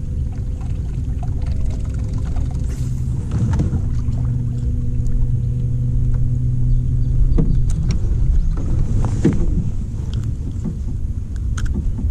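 Low rumble of wind and water around a canoe on the lake, with a steady low motor hum that cuts off suddenly about seven seconds in. A few short knocks follow.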